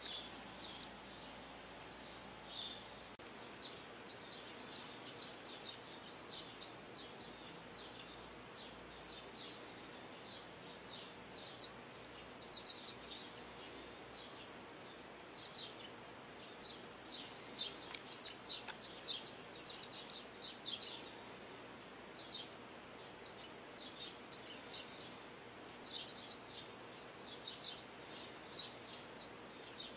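Small songbirds chirping: many short, high chirps in quick irregular clusters, over faint steady background noise.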